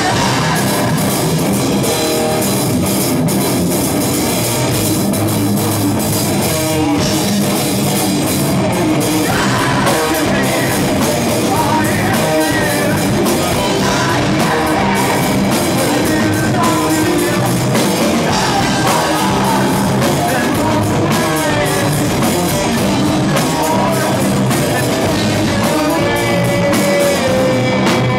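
Rock band playing live and loud: electric guitars and a drum kit, with a vocalist singing into a microphone.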